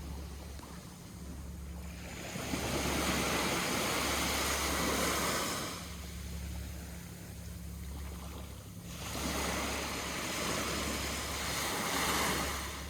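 Sea waves washing onto the shore, coming in two swells of surf about three seconds long each. A steady low rumble runs underneath.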